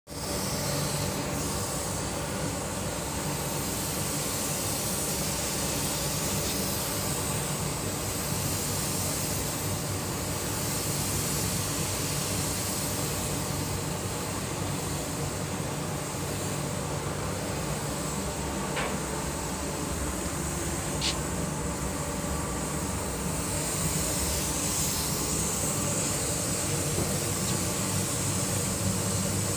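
Paint spray booth running: a steady motor hum with a constant air hiss that swells and eases now and then.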